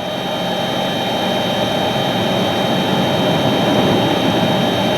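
Steady rushing noise of blizzard wind, gusting near 60 mph, blowing around a car, heard from inside the cabin along with the car's slow-driving and road noise on chained tyres.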